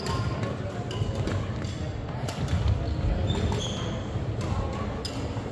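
Badminton rackets hitting the shuttlecock in sharp, scattered cracks, with short high sneaker squeaks on the wooden gym floor and a low, echoing gym rumble underneath.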